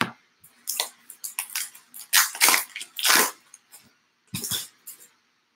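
A foil trading-card pack wrapper crinkling and tearing as a pack is ripped open, with cards sliding and being handled: a run of short, scratchy crackles that stops about five seconds in.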